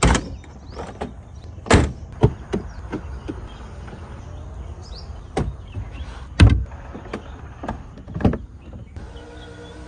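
Range Rover LWB Autobiography's doors and latches shutting: a run of sharp clunks and clicks, about seven strong ones, the loudest about six and a half seconds in.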